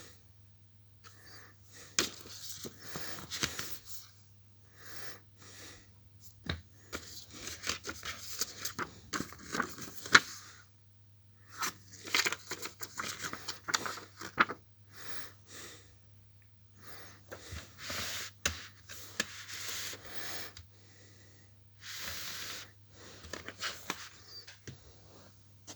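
DVD box set packaging being handled and opened: irregular rustling and tearing, with sharp clicks and knocks, the loudest about ten seconds in.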